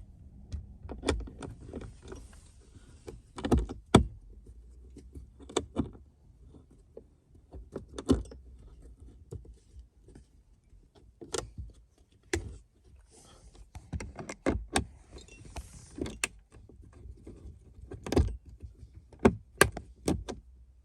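Irregular sharp metallic clicks and clinks of a hand screwdriver driving screws into a metal dash-mount panel, with a few louder knocks.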